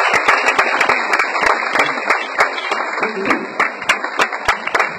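Audience applauding, the clapping thinning out and getting quieter in the second half.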